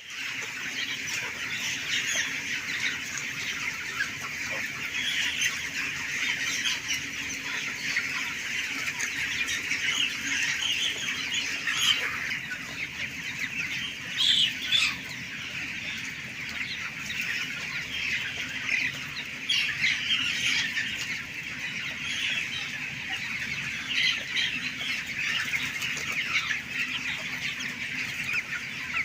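A large flock of three-week-old broiler chickens calling together in their shed: a dense, continuous chatter of many overlapping cheeps, with a few louder calls near the middle, over a steady low hum.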